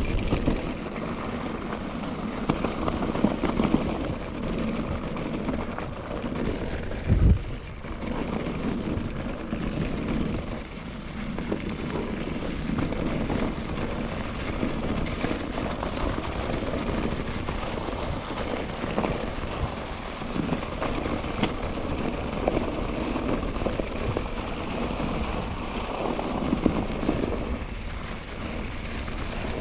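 KTM Ultra Fire 27.5 mountain bike rolling fast over leaf litter and cobbles, tyre noise and crackling leaves mixed with steady wind rumble on the chest-mounted action camera's microphone. A single loud thump about seven seconds in, like the bike jolting over a bump.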